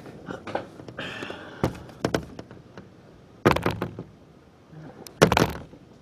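A series of irregular knocks and thuds, with a louder burst a little past halfway and the loudest one near the end.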